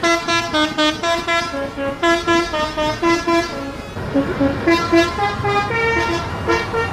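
Tour bus's multi-tone 'telolet' air horn playing a quick tune of short stepped notes, breaking off briefly about four seconds in before the tune starts again.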